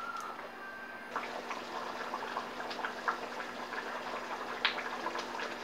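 Egg-and-potato curry gravy, thinned with water, boiling in a pan on a gas stove: a bubbling hiss with many scattered small pops, starting about a second in.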